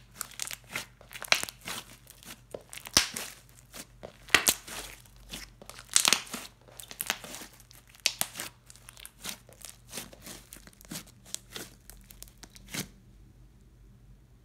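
Metallic blue slime with beads mixed in, kneaded, squeezed and pulled apart by hand: a run of irregular sticky crackles and pops. The crackling stops a little before the end, when the slime is let go.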